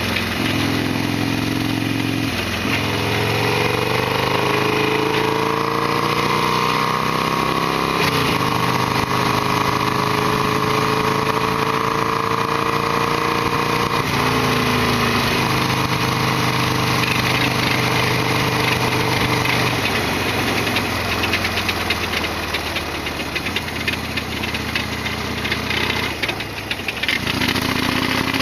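Harley-Davidson Sportster XL1200R's V-twin engine running as the motorcycle is ridden. Its pitch rises over the first several seconds, holds steady, drops after about fourteen seconds, and stays low near the end.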